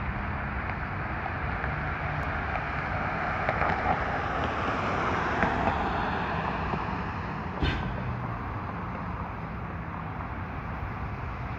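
A car passing on a wet road: tyre hiss and engine noise rise and fade over a steady low engine hum. A single sharp knock comes about two-thirds of the way through.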